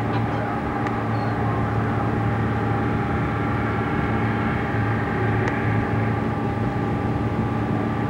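Steady engine drone: a strong low hum with several steady higher tones over a rushing wash, unchanging throughout.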